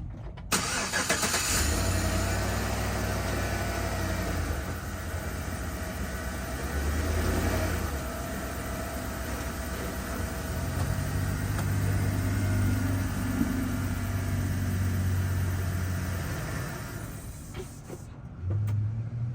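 Chevrolet Suburban's engine starting on freshly changed oil, then running and pulling unevenly as the vehicle is backed down off its ramps, dying down near the end.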